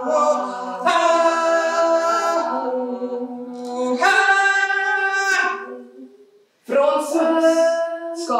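A woman's voice singing an unaccompanied lament in long, held notes, phrase after phrase, with a short breath pause about six and a half seconds in.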